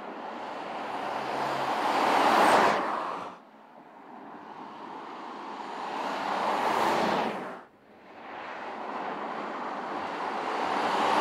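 Porsche Cayenne SUV driving by in three separate passes: engine and tyre noise swells as the car approaches. The first two passes cut off suddenly about three and seven and a half seconds in, and the third builds near the end.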